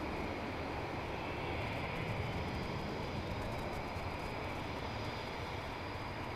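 Eurofighter EF.2000 jets' EJ200 turbofan engines running at the runway threshold: a steady rumble with a faint high whine over it.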